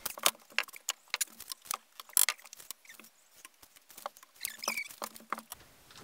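Someone moving about on a plywood floor, picking up and handling tools and timber: a scatter of irregular sharp clicks and light knocks.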